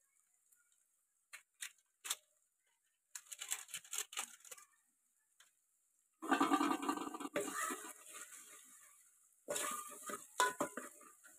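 Metal spoon scraping and clinking against an aluminium pot while stirring spices into a frying onion-tomato masala, in several bouts with short pauses between them.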